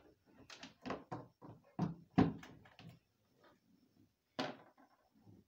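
Irregular clicks and knocks of things being handled by hand: a quick run of them in the first three seconds, then one more about four and a half seconds in.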